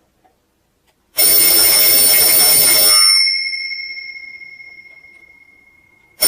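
Twin bell alarm clock going off: the hammer rattles loudly against the bells for about two seconds, then stops, and the bells ring on, fading away over about three seconds. The loud ringing starts again just before the end.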